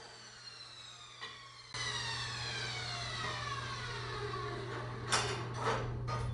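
Power saw's motor spinning down after a cut on steel tubing, its whine falling steadily in pitch. A steady low hum comes in a little under two seconds in, and two sharp metallic clinks follow near the end.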